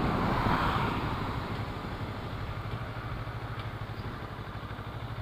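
Motorcycle engine running as the bike slows, the rush of wind and road noise fading over the first two seconds, then settling to a steady, low, pulsing idle.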